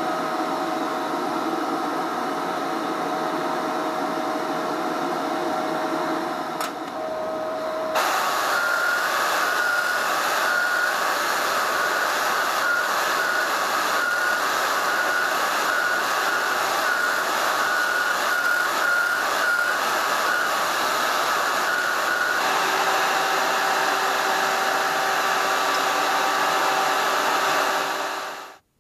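Portable band saw running and cutting a steel bracket, a steady motor hum with a whining tone. About eight seconds in it turns harsher and brighter as the blade works through the metal, and its pitch shifts again near the end.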